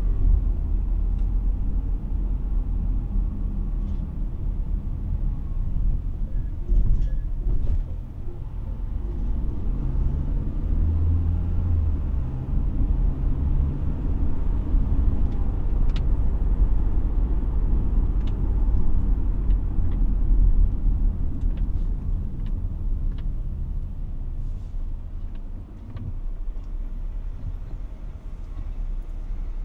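A car on the move: a steady low rumble of road and engine noise, with a few faint ticks.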